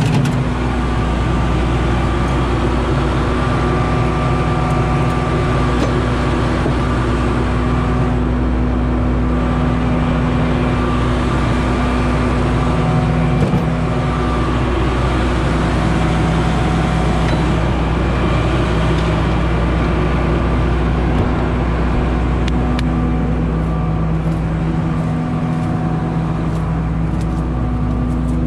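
Claas Lexion 670 combine harvester running steadily: a constant engine and machinery hum.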